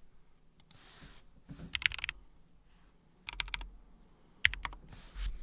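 Keys being pressed on a newly built Intro S100 mechanical keyboard: several short runs of quick clacking keystrokes, about a second apart.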